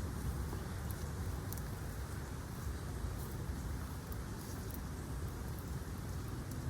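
Steady rain falling, with scattered faint drop ticks over a low rumble.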